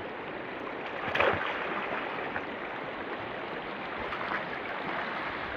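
Steady rush of stream water, with a brief louder splash about a second in from people wading in the shallow water.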